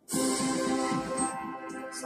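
Soundtrack music playing from a television's speakers. It cuts in suddenly right at the start and then holds steady.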